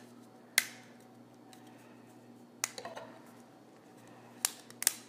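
Sharp clicks from a stack of 3D-printed plastic face-shield headbands being twisted by hand to pop the stacked frames apart: about four clicks, the loudest about half a second in and two close together near the end.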